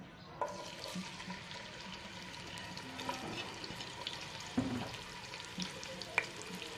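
Chopped onions dropped into hot oil in a nonstick pot, which starts sizzling about half a second in and goes on as a steady crackling fry with small pops. There are a couple of sharper clicks later on.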